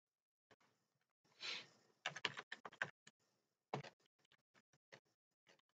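Computer keyboard typing: keystrokes clicking in short irregular runs, with a brief soft rush of noise about a second and a half in.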